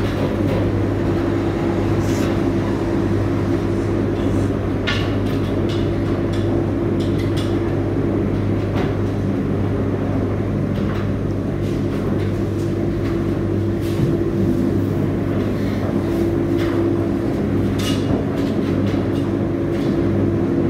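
Ipso WE165 35 lb commercial washer on its wash cycle: the drum turning with bed linen tumbling inside, under a steady machine hum with scattered knocks and clicks.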